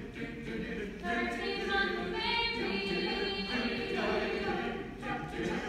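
Large mixed choir singing in harmony, holding sustained chords that swell brighter in the middle.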